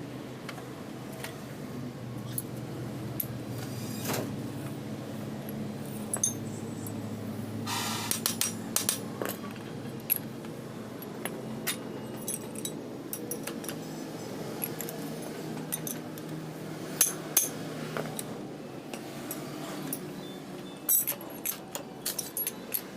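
Metal tools and truck differential parts clinking and tapping at irregular intervals, with a few quick clusters of strikes, over a steady low hum.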